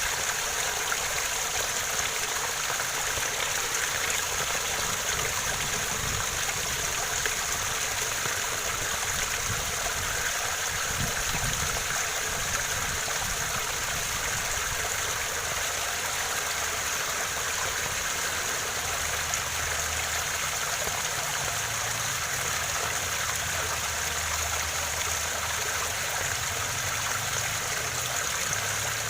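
Waterfall: falling water running in a steady, even rush with no breaks or changes.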